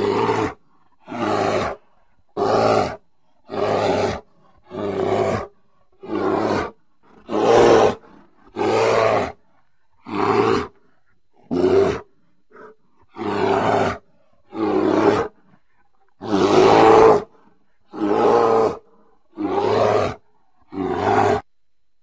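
Grizzly bear giving a long run of short, loud roars, about one a second with brief silences between, one of them longer about three-quarters of the way through.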